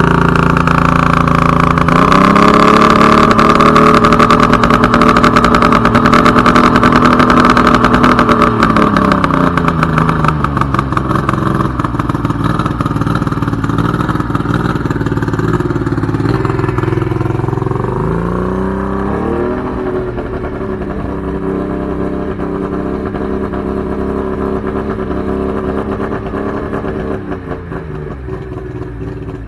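Boat outboard motor running out of the water on a garden-hose water supply, just after starting. Its speed rises about two seconds in, drops back around ten seconds, picks up again briefly near nineteen seconds, then settles to a steady idle.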